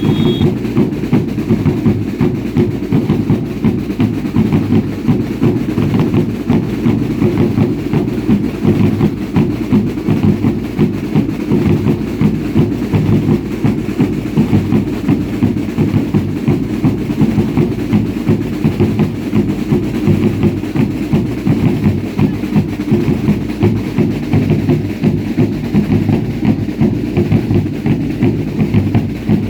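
Drums beating a steady, quickly repeating rhythm for a baile indio ritual dance.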